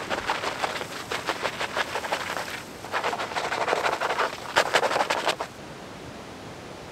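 Snow being swept by hand off the spruce-bough roof of a bushcraft shelter: dense rustling and crackling of needles and falling snow in two bouts, the second louder. The sound stops abruptly about five and a half seconds in, leaving a steady soft hiss.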